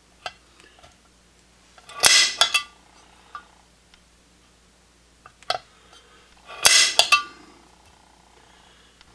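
Automatic (spring-loaded) center punch firing into an aluminum channel through a paper template: two sharp metallic snaps about four and a half seconds apart, each with a couple of quick follow-up clicks and a brief ring. Faint clicks of the punch tip being set on the marks come in between.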